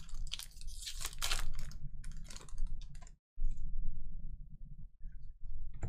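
Crinkling of a foil trading-card pack wrapper as cards are pulled out and handled: a quick run of sharp crackles for about the first three seconds, then only a low hum with a few faint ticks.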